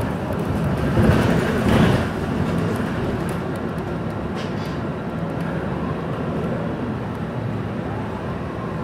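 Cabin noise inside a moving MAN NL323F Lion's City diesel bus: steady engine drone and road noise, with a louder burst of rattling about a second in.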